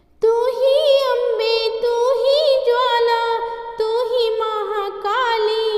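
A woman singing a Hindi devotional bhajan to Saraswati over musical accompaniment. Her ornamented melody starts about a quarter second in with wavering pitch bends, after a moment of near silence.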